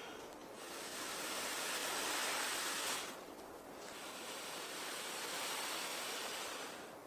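Blizzard wind blowing in gusts: a hissing rush that swells twice, dips briefly in between and eases near the end.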